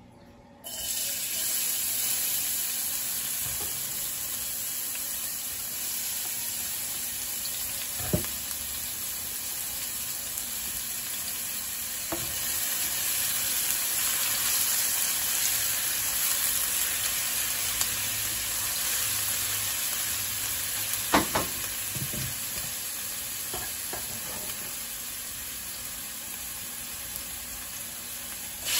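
Chopped red onion dropped into hot oil in a stainless steel pan, starting to sizzle all at once less than a second in and sizzling steadily from then on. A few sharp knocks of a spatula against the pan as the onion is stirred.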